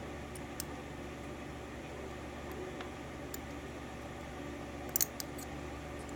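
Small metal tools ticking against a lock plug while a pin caught inside is worked at: a few light clicks and a sharper cluster of clicks about five seconds in, over a steady low hum.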